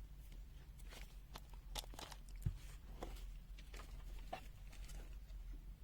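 Faint scattered clicks and taps from handling small objects, the sharpest a single tick about two and a half seconds in, over a low steady hum.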